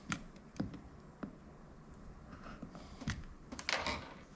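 A few light, sharp clicks and taps as a pen-style voltage tester's tip marks mounting holes through the pump's base onto a PVC board, with a quick cluster of clicks and handling rustle near the end.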